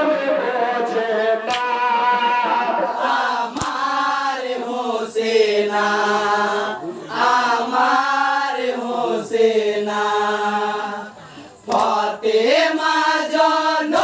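Men singing a Bengali marsiya (jari gaan) lament for Hasan and Husain: a lead voice on a microphone, with a group joining in a chant, the notes long and drawn out. A few sharp clicks sound through it, and the singing drops away briefly shortly before the end.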